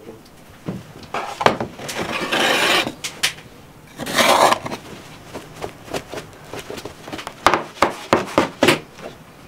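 Metal baking trays handled on a wooden table: clatter and knocks, with two longer scrapes in the first half and a quick run of knocks near the end.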